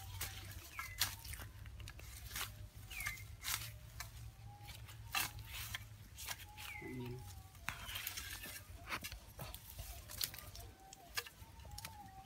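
Repeated sharp scrapes and knocks of a hoe working dry ground and brush, with a few short bird calls.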